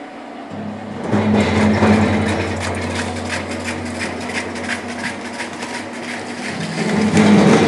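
Urschel GKA slicing machine running with a steady motor hum that comes in about half a second in. From about a second in, potatoes clatter and knock irregularly through its cutting head as they are sliced, growing louder again near the end.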